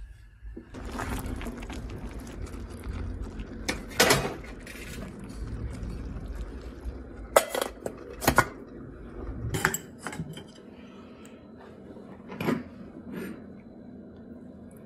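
Stainless steel pot lid being handled on its pot, giving several sharp metal clinks, over a steady low rumble from the stovetop that stops about ten seconds in.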